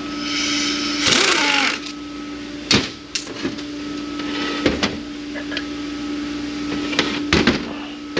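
A brief buzzing run of a small power tool, then several sharp metallic knocks and clanks of tools and transmission parts being handled, over a steady shop hum.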